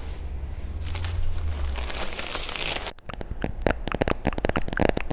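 Packaging being handled and crinkled during unpacking: a rustling that builds over the first three seconds, breaks off sharply, then turns into a quick run of crackly crinkles.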